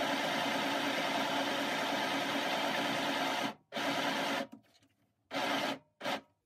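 Midi compact electric sewing machine stitching a zip into a cushion cover: one steady run of about four seconds, then three short bursts as the sewing stops and starts.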